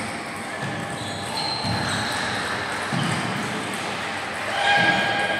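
Table tennis play echoing in a sports hall: dull knocks of the ball, footwork and chatter, with a short pitched squeal or shout near the end, the loudest moment.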